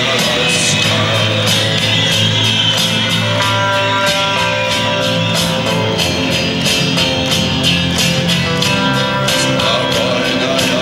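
Live rock band playing: electric guitar lines over bass and drums with a steady beat.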